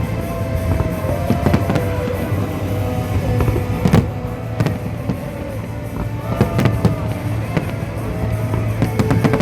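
Fireworks bursting in a rapid series of bangs, the loudest about four seconds in, over music with held, gliding notes.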